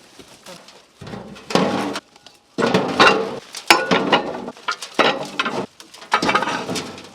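Loose metal parts clattering and clinking in several short bursts, as a pile of old Land Rover parts is rummaged through.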